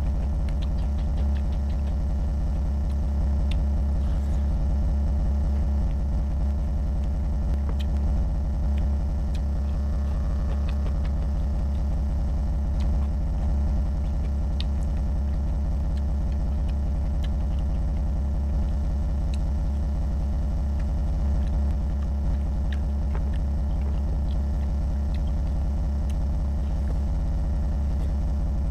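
A steady low hum runs throughout and is the loudest sound. Above it are faint scattered wet clicks and smacks of someone chewing and mixing rice and curry by hand, more of them in the first half.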